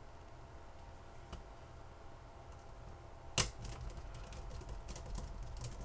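Small clicks and taps of a tiny screwdriver and screws against a mobile phone's plastic housing as screws are driven in: one sharp click about three and a half seconds in, then a scatter of light ticks.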